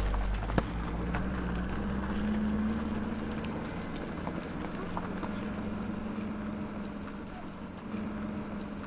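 Mercedes-Benz saloon car's engine running at low revs as the car drives slowly away along a dirt track, a steady hum that wavers slightly in pitch and fades gradually. A sharp click about half a second in.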